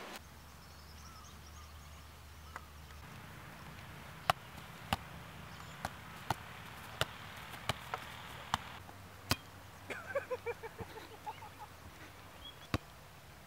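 A football being kicked on a grass field: a string of sharp, separate knocks, irregularly spaced, from about four seconds in, and one more near the end. A short run of falling chirps comes about ten seconds in.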